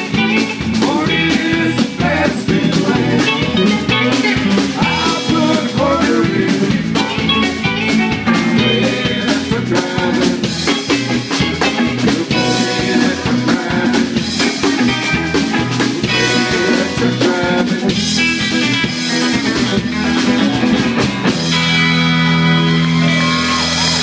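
Live band playing electric guitars, bass, acoustic guitar and drum kit, with a steady drum beat. About three-quarters of the way in the drums stop and the band holds a long sustained chord.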